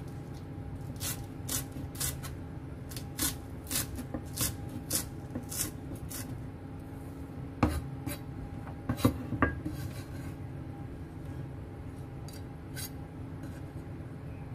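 A chef's knife chopping spring onion on a wooden cutting board: sharp strikes about two a second for the first six seconds. After that come a few scattered taps and the blade scraping the chopped pieces together.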